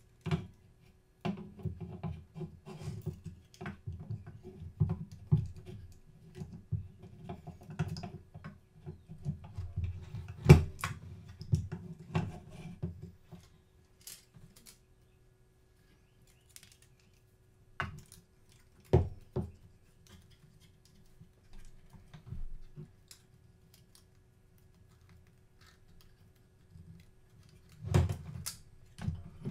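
Hands reassembling a camera's parts: a busy run of small clicks, knocks and rubbing for about the first dozen seconds, then a few separate knocks further on.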